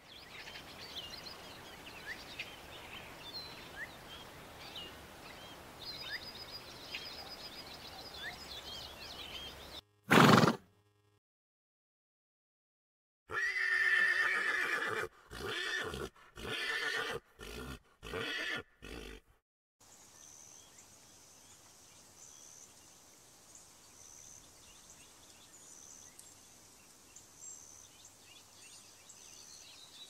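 A string of separate animal-sound clips. First come faint short chirps over a low hiss, then a short loud call about ten seconds in. After a few seconds of silence there is a run of loud pitched calls chopped into short pieces, and finally a faint high pulsing that repeats over a quiet hiss.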